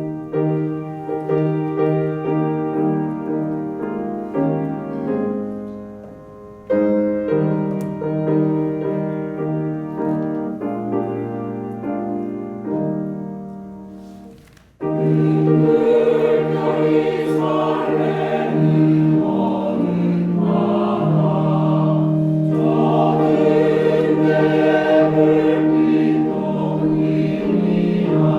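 Piano and organ introduction playing a hymn in slow chords, each one fading. About fifteen seconds in, a church choir enters and sings the hymn with the accompaniment, louder and fuller.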